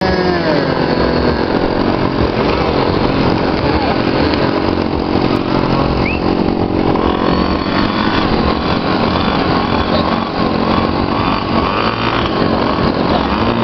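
Several model airplane engines running together, a loud dense drone of overlapping pitches that drift up and down as the engines speed up and slow down.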